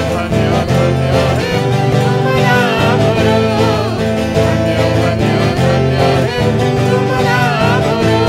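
Live Odia Christian worship song: a twelve-string acoustic guitar strummed under a woman's singing voice, with a steady accompaniment throughout.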